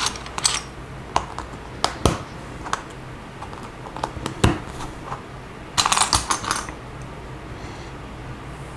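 Plastic Lego pieces clicking and clattering as they are handled and snapped together: scattered sharp clicks, with a busier burst of rattling about six seconds in.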